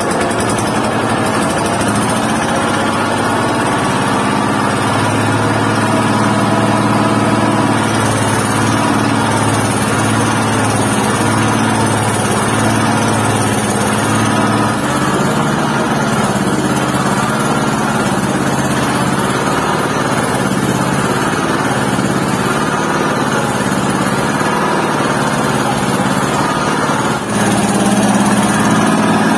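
Small stationary engine running steadily as it drives a cassava grinder while peeled cassava roots are fed into the hopper.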